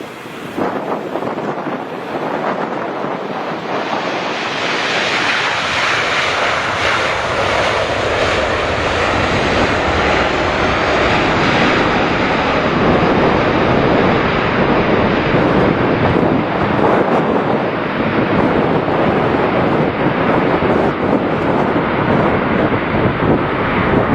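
Airliner's jet engines, growing louder over the first few seconds and then running loud and steady, with a faint high whine that slowly falls in pitch.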